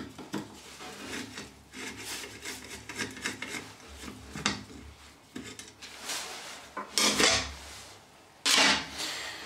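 A screwdriver turning out the lid screws of a portable site transformer's case, with irregular scraping and rubbing strokes, then louder handling noise near the end as the lid is lifted off.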